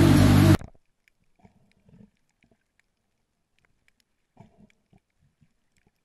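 Background music cuts off suddenly about half a second in, then near silence broken by a few faint low crackles and knocks of underwater audio.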